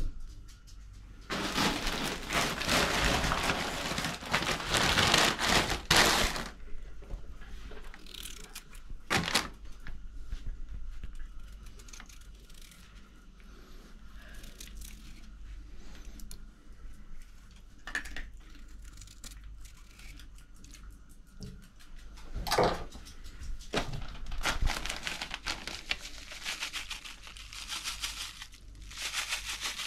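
Kitchen handling sounds: a rushing noise for about five seconds near the start, then scattered dry cracks and crackles as a garlic clove is peeled, and a plastic packet crinkling near the end.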